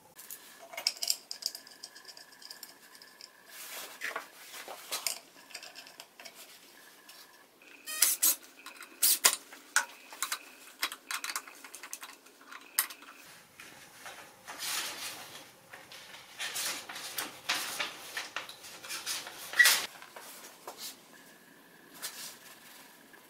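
Hand-tool work on a small wooden jig: a wooden block handled on the bench and screws driven into it with a hand screwdriver, giving a string of irregular clicks, knocks and scraping strokes.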